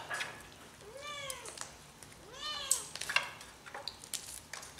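A cat meowing twice, each meow rising then falling in pitch, over scattered light clicks and rustles of roasted duck being torn apart by hand.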